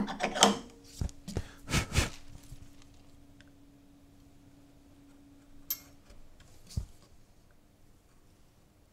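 Several knocks and clicks of hand tools and wood being handled on a wooden workbench, loudest in the first two seconds, then a short scrape of a carving knife cutting into the painted panel and one more knock.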